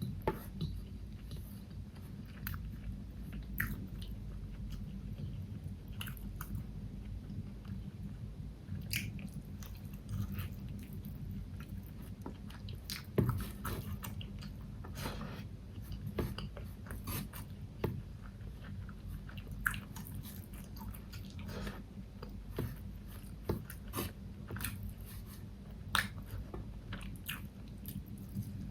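Close-miked chewing and biting of food, with irregular sharp, crunchy clicks over a steady low hum.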